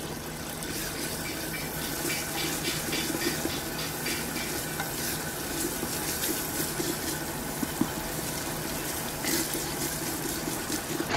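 Wooden spatula stirring and scraping a thick sizzling masala around a clay pot (handi), working it off the bottom so it does not stick while it fries down. There is one sharper knock about eight seconds in.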